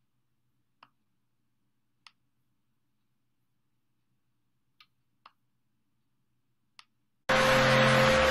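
A few faint, scattered computer mouse clicks. About seven seconds in, playback of a recording starts abruptly and loud: a theatre audience applauding, with music under it.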